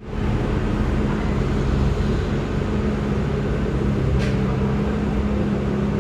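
A steady motor hum holding one low pitch, with a brief hiss about four seconds in.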